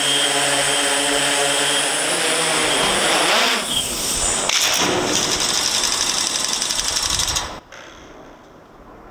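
DJI S1000 octocopter's eight electric motors and propellers spinning up and lifting off. A steady pitched hum turns into a louder, rougher buzzing whir with a rapid flutter about three seconds in. The sound cuts off abruptly about seven and a half seconds in.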